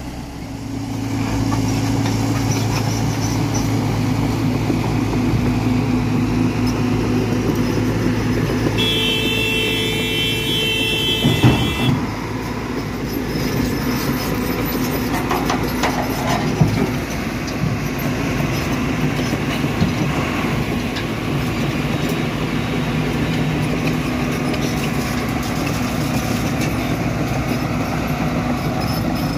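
Diesel engine of an orange Mitsubishi Fuso dump truck running as the truck moves off, a steady low drone that swells about a second in. A brief high tone sounds for about three seconds near the middle, with a couple of sharp knocks.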